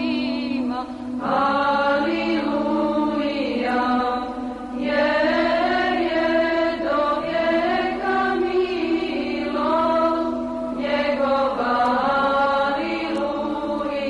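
Orthodox church chant used as the theme music: voices sing a slow melody in phrases over a steady held low drone note.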